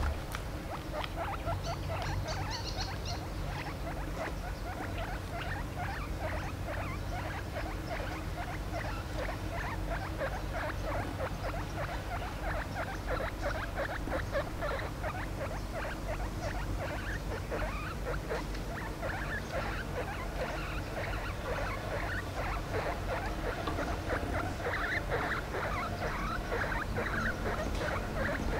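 Guinea pig making a continuous stream of short, rapid squeaks over a low steady hum.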